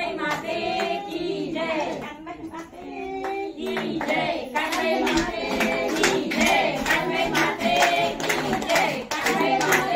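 Voices singing a devotional folk song (bhajan) with rhythmic hand clapping. The clapping comes in a few seconds in and keeps about two claps a second.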